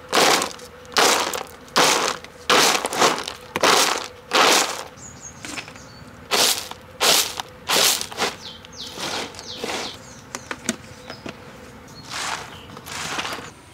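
Sun-dried bitter gourd chips being winnowed in a woven bamboo winnowing tray: a dry swishing rattle with each toss, a little under one a second, then looser, less regular rustles of the brittle chips.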